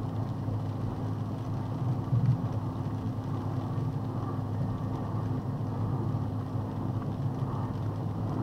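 Steady low drone of a box truck's engine and road noise inside the cab at highway speed, with a brief louder thump about two seconds in.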